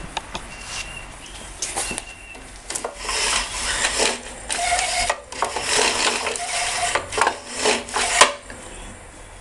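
Recoil starter cord of a Tecumseh four-stroke lawnmower engine being pulled by hand several times in quick succession, with rasping strokes and metallic clatter, to check whether the engine turns over; it does not fire. A few sharp clicks come first.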